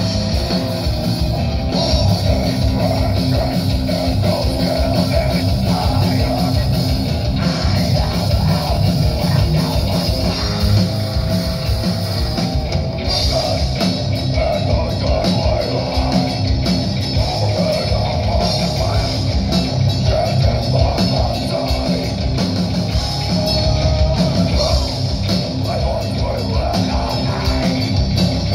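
Heavy metal band playing live: electric guitars, bass and drum kit, with a vocalist singing into the microphone.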